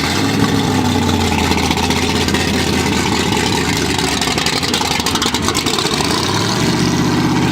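A car engine running loudly and revving as the car is launched off the line, with the engine note rising and getting stronger near the end.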